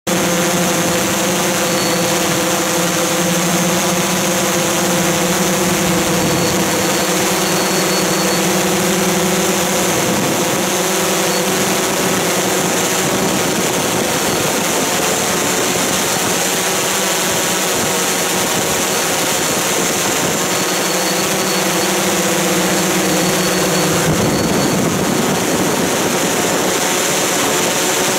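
Electric motors and propellers of a homemade multirotor copter, heard close from the aircraft itself as a dense, steady buzz in flight. The pitch shifts a little as the motors adjust thrust, and the sound changes about four seconds before the end.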